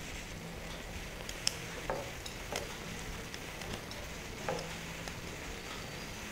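Soft, steady sizzle of bread halwa cooking in milk in a pan on the gas stove, with a few faint clicks of a small knife slicing almonds against a plate.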